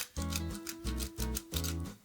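Background music with a steady beat: a pulsing bass line with notes about twice a second, under sustained higher notes.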